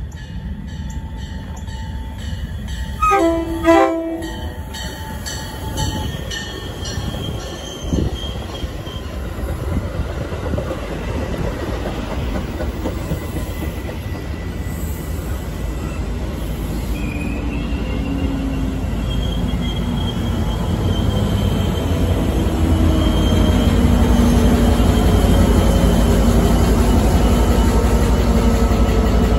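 Metra commuter train arriving with its cab car leading: the cab car's bronze bell rings steadily, and its horn gives one short blast about three seconds in. Then the rumble of the passing bi-level coaches builds, loudest near the end as the diesel locomotive pushing at the rear goes by.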